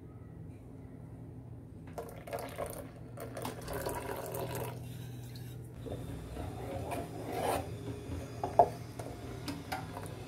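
Wooden spoon stirring a thin mango curry in a metal pot, scraping and sloshing in two spells, with one sharp knock about eight and a half seconds in. A steady low hum runs underneath.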